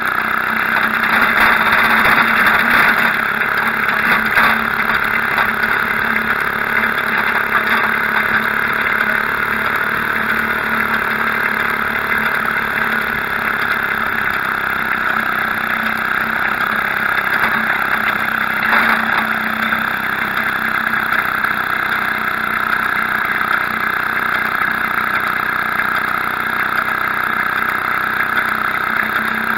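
Maytag Model 72 twin-cylinder two-stroke washing-machine engine running steadily, driving a motor bicycle under way, picked up by a small bike-mounted action camera's poor microphone.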